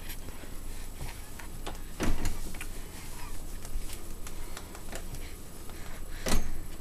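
Light knocks and rattles from an open dishwasher as a toddler handles it and pulls himself along it, with louder knocks about two seconds in and near the end.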